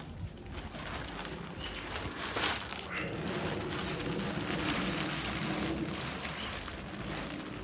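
Polythene sheeting crinkling and rustling as it is pulled off young plants, with one louder crackle about two and a half seconds in.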